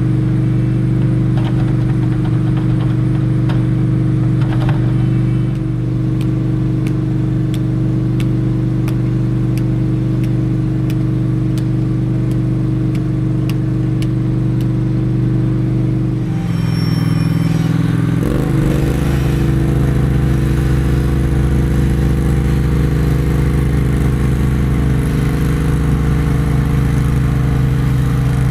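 Vehicle engine and road noise heard while driving: a steady drone that shifts down in pitch about 17 seconds in, as the engine speed changes, then holds steady again. Faint regular ticking sounds through the first half.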